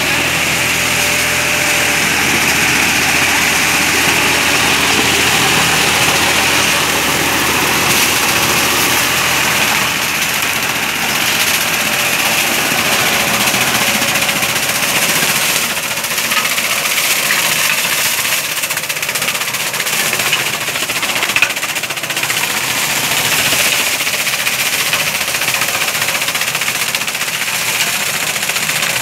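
55 hp New Holland four-wheel-drive tractor's diesel engine running under load while its rear-mounted banana cutter shreds banana stalks and leaves; a loud, steady mechanical din.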